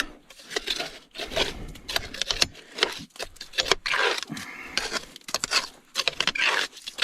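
Packed mud being scraped out from around a machine's hydraulic drive motors: a series of irregular scraping strokes with short pauses between. The mud is cleared so it cannot freeze up and jam the motors.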